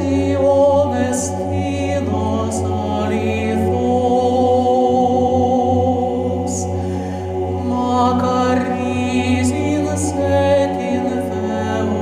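Male choir singing a cappella: several voice parts holding sustained chords over a steady low bass note, with the crisp consonants of the words cutting through now and then.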